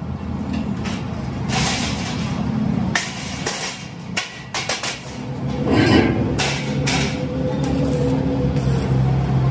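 Steel sheet clanking and knocking as it is laid into a square-tube steel frame. About six seconds in, an electric arc welder strikes and tack-welds the sheet to the frame, crackling over a steady low hum.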